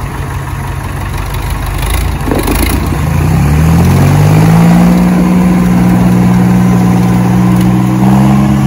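Diesel tractor engines of a Sonalika DI 55 and a Farmtrac 60 running hard under load as the tractors pull against each other in a tug-of-war. About three seconds in, one engine revs up, its pitch climbing over a second or two and getting louder, then it holds high and steady at full throttle.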